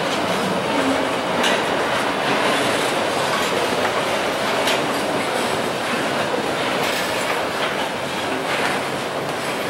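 Freight train of covered hopper wagons rolling past up close as it climbs a grade. Its steel wheels make a steady rumble on the rails, with a few scattered clicks as the wheels cross rail joints.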